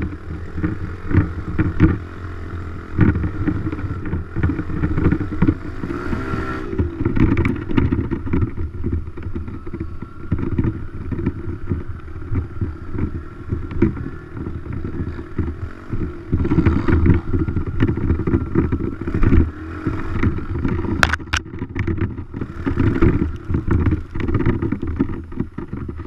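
Dirt bike engine running while riding over rough ground, with many short knocks and jolts and a brief change in engine pitch about six seconds in.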